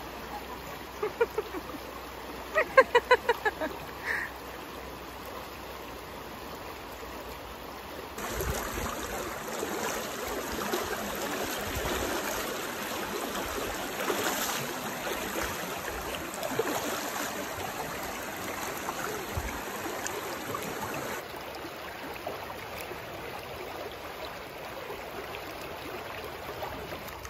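Shallow river water running over stones, a steady rushing and gurgling that grows louder from about eight seconds in and eases back near the end. A few short, loud shouts come just after the start.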